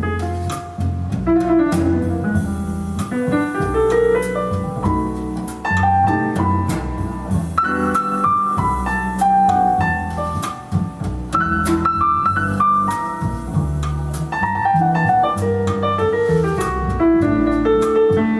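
Instrumental jazz break: a piano plays a busy run of single notes and chords over a double bass line, with no singing.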